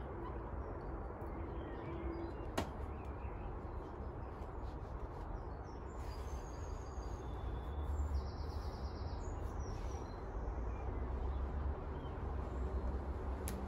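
Outdoor background: a steady low rumble with small birds chirping now and then, and one sharp click about two and a half seconds in.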